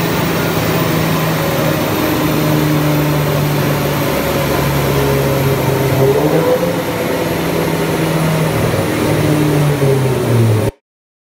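Mitsubishi Lancer Evolution X's turbocharged four-cylinder running at idle on a chassis dyno, mixed with the rush of cooling fans: a loud, steady drone with humming tones that shift now and then. It cuts off suddenly near the end.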